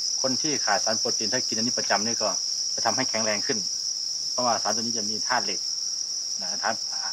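Steady high-pitched chirping of a dense chorus of farmed crickets, an unbroken shrill trill from many insects at once.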